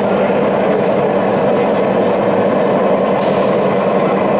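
O gauge model train running along the layout's track, its wheels clicking over the rail joints, over a steady background of noise.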